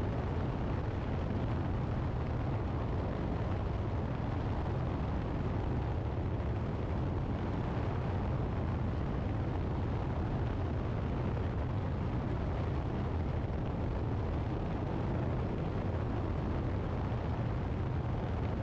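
Steady low rumble of wind and engine noise from a light airplane in flight, heard through a camera mounted on the outside of the aircraft.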